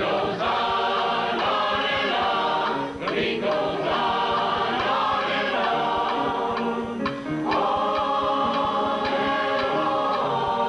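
A choir singing together, holding each note for about a second before moving to the next.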